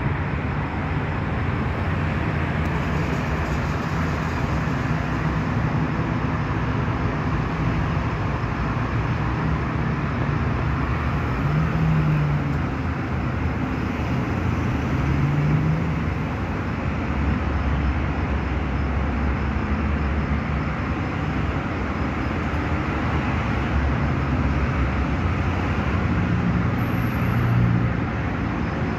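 Steady traffic noise with a low engine hum that rises and falls a little in pitch.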